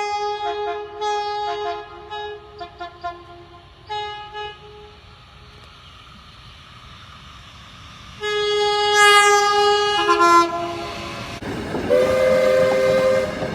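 Train air horns sounding a chord of several notes at once: a run of short blasts, then after a few quieter seconds a louder long blast. Near the end a horn chord at a different pitch sounds over the rushing noise of a train going by.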